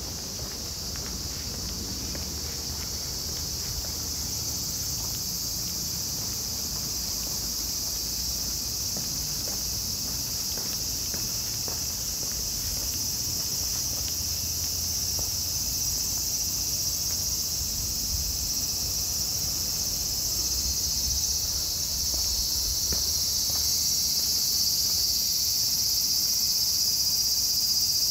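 A steady, high-pitched chorus of insects that grows gradually louder toward the end.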